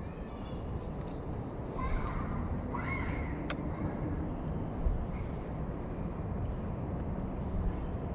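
Insects, crickets or similar, trilling in one steady high-pitched drone over a low rumbling noise. Two short chirps come about two and three seconds in.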